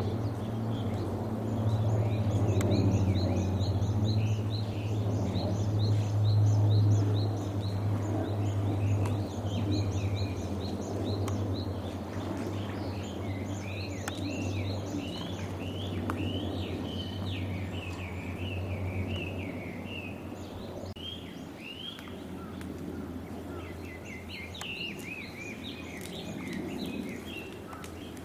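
Small birds chirping, many short rising and falling calls overlapping, over a steady low hum that fades about two-thirds of the way through.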